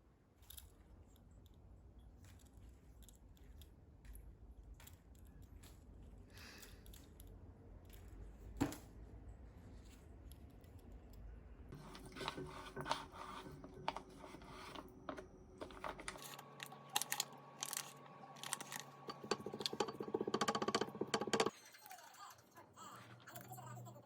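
Small clicks and clinks of tableware, such as chopsticks, spoons and dishes, during a meal, with one sharper knock about a third of the way in.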